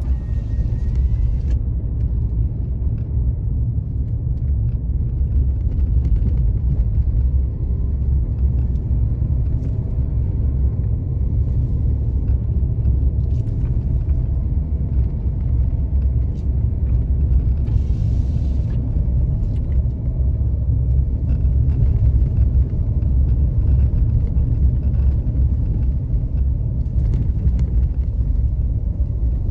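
Steady low rumble of a car driving along a paved road: engine and tyre noise.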